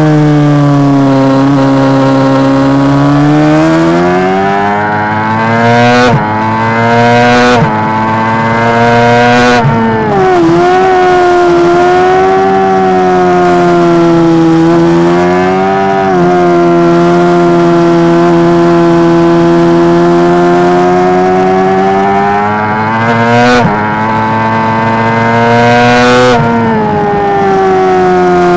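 Honda CBR600RR's inline-four engine heard from the rider's seat at racing speed, its note falling and rising through the corners. It has several sharp breaks in the note where the gears change.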